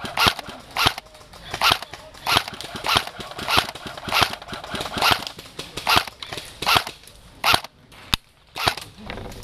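Airsoft guns firing single shots in quick succession, often in pairs, at an uneven pace, with a sharper crack about eight seconds in.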